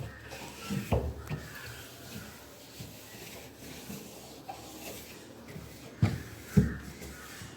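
A wet cloth rubbing over a refrigerator's outer panels, with a few dull knocks about a second in and twice near the end.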